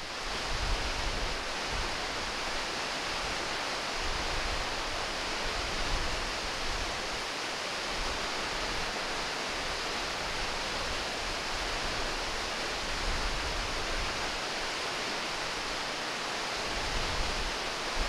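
Bridal Veil Falls, a waterfall, pouring with a steady rush of falling water.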